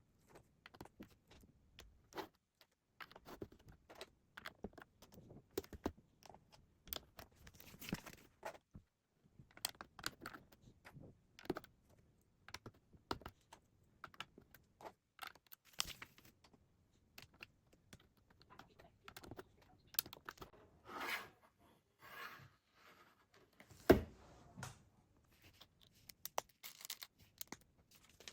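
Lego bricks clicking and snapping together as pieces are handled: an irregular run of small plastic clicks, with a short rustle about two-thirds of the way through and one sharper, louder click soon after.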